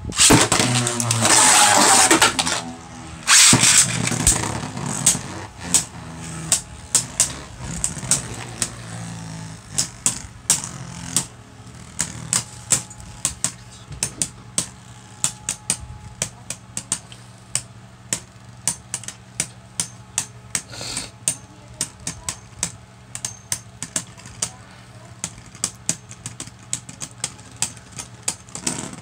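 Two Beyblade Burst tops, Cyclops C4 and Nightmare Luinor, launched into a plastic stadium: a loud whirring rush as they go in, then the tops spinning and knocking against each other with sharp clacks about twice a second.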